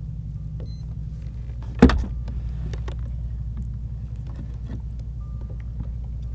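One sharp knock about two seconds in as the landing net is brought against the plastic kayak hull. Small clicks from handling the net and fish follow, over a steady low rumble.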